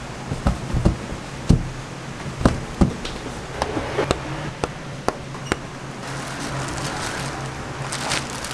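Scattered soft knocks and taps of dough being pressed and set down on a steel worktable and metal trays, over a steady low kitchen hum. In the last two seconds, a plastic sheet crinkles as it is pulled over a tray of dough balls.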